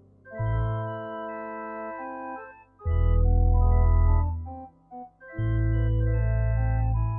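Electronic organ playing a slow Polish Christmas carol arrangement in held chords. The phrases are separated by short pauses, and deep sustained bass notes enter under the second and third phrases.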